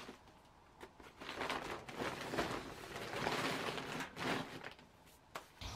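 Woven plastic feed bags rustling and scraping in several irregular rustles as a compost-filled bag is handled and shifted.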